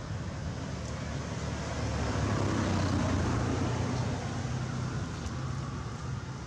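Steady engine hum of a motor vehicle, swelling louder about a third of the way in and easing off again.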